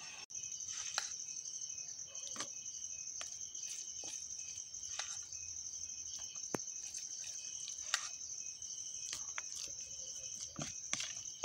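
Crickets trilling steadily at night, one continuous high-pitched ring, with scattered light clicks and taps over it.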